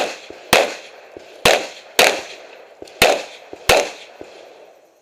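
Pistol fired in a string of about six shots at uneven intervals, roughly one every half second to one second, each shot sharp with a short tail. Fainter small knocks fall between the shots.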